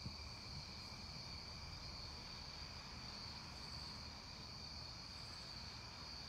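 Steady chorus of night-singing insects, a constant high-pitched trill, over a faint low background hum.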